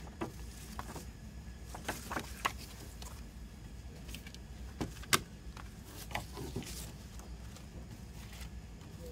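Hands handling a CD album's paper booklet, card sleeve and plastic jewel case: scattered taps, clicks and rustles of paper and plastic, the sharpest about five seconds in, over a low steady hum.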